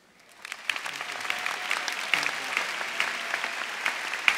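Large crowd applauding. The clapping starts about half a second in, swells over the next second, and then carries on steadily.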